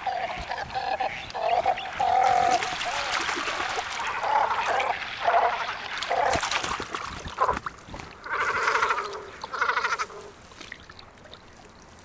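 Great cormorants at a lake nesting site: guttural calls and splashing water as a bird lands on the lake, growing quieter near the end.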